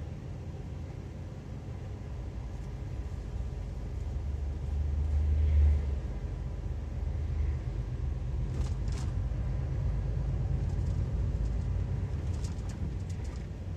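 Heavy truck driving through town, heard from inside the cab: a steady low engine and road rumble that swells briefly about five seconds in, with a few faint clicks later on.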